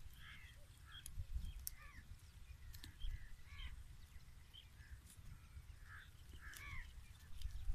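Faint short bird chirps and calls, several a second, scattered over a steady low rumble.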